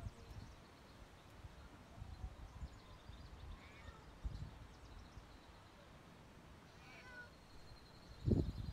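Domestic cat meowing twice, short and faint, about three and a half seconds and seven seconds in, each cry falling in pitch. Low rumbling and thumps run underneath, with a louder low thump near the end.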